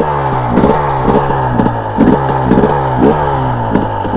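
KTM 250 dirt bike engine running under throttle as the bike rides off, its note slowly falling in pitch, with regular surges about twice a second.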